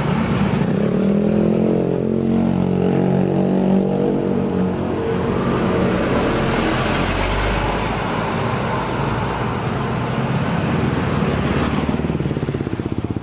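Road traffic passing close by. A motor vehicle's engine goes past in the first few seconds, its pitch rising and then falling, over a steady traffic rumble.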